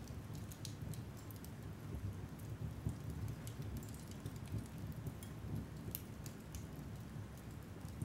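Wood logs burning in a fireplace: scattered crackles and pops over a steady low rumble.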